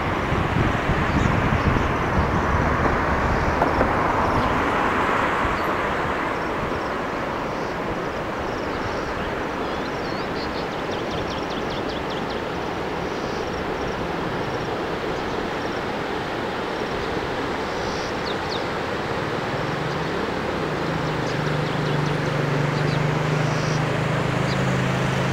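Outdoor ambience: steady wind noise on the microphone with a low rumble at first and faint bird chirps. Near the end a steady low engine hum from road traffic comes in and holds.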